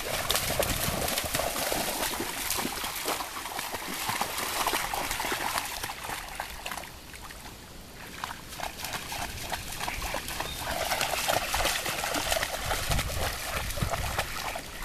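Belgian Shepherd dogs splashing as they wade and trot through shallow lake water, a steady patter of paws in the water that eases off briefly about halfway.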